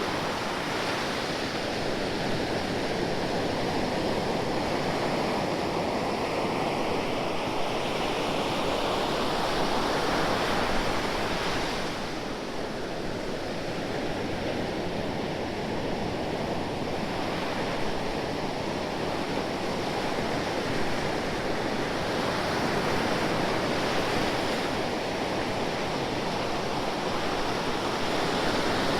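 Ocean waves washing in as a continuous rushing surf, with a slight lull about twelve seconds in before it swells again.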